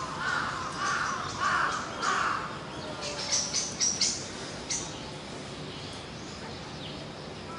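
A bird, crow-like, caws four times in quick succession with harsh calls. About three seconds in comes a quick run of short, sharp, high-pitched sounds.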